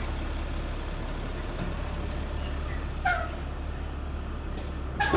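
A large vehicle, likely a truck, engine running steadily with a low rumble. Two brief sharp sounds with a falling pitch come about three seconds in and, louder, near the end.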